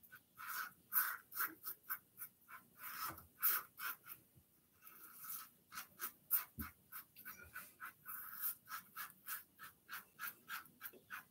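Adjustable safety razor set to 5 scraping through lathered stubble in short, quick strokes, several a second with brief pauses, on a cross-grain pass. There is one soft low knock about two thirds of the way through.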